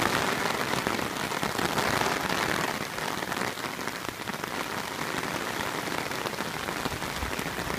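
Steady rain falling, a dense hiss of fine drops that eases slightly about three seconds in.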